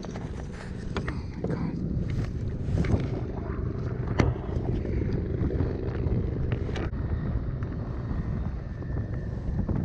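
Wind buffeting the microphone over choppy water around a kayak, with a few scattered sharp clicks and knocks, the loudest about four seconds in.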